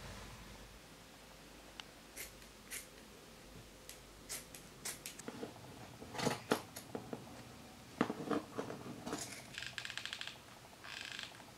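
Scissors cutting through a tufted rug's excess backing cloth: scattered snips, then a run of crisp cuts around the middle. Near the end come two short, fast rattles.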